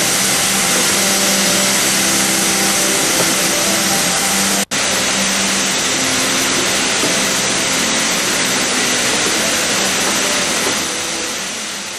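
Sheep-shearing machine running steadily: the electric shearing motor and handpiece whirring with a steady hum. The sound drops out for an instant a little before halfway and fades away near the end.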